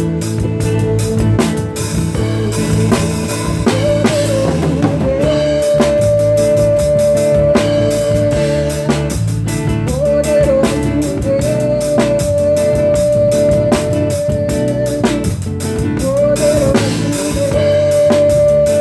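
A live pagode band playing, the drum kit keeping a busy beat of frequent snare, rim and cymbal hits. Over it, a long held melody note comes in three times.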